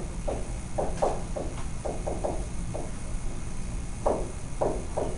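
Stylus strokes on a tablet as words are handwritten: a dozen or so short, irregular scratches, grouped early on and again about four seconds in, over a steady low hum.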